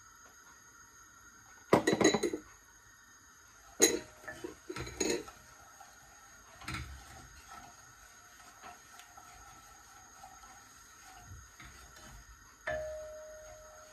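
Wooden spoon knocking and scraping against a stainless steel saucepan while stirring. A quick clatter comes about two seconds in, a few knocks around four to five seconds, and one last knock near the end leaves the pot ringing briefly.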